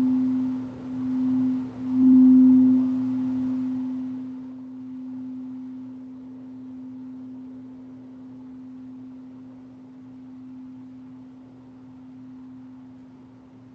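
Singing bowl ringing a single low, steady tone. It swells in pulses, loudest about two seconds in, then sustains and slowly fades.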